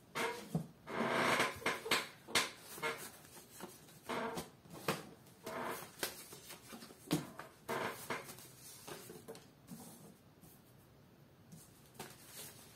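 Tarot cards being handled: a card set down on a wooden tabletop, then a thick stack of worn paper cards shuffled and rustled in the hands, giving an irregular run of short rustles and taps, with a longer rustle about a second in.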